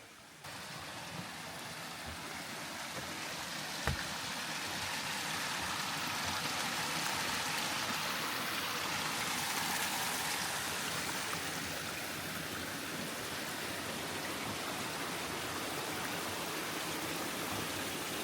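Spring water rushing and splashing down small falls. It cuts in abruptly, grows louder over the first ten seconds or so, then eases slightly. There is a single knock about four seconds in.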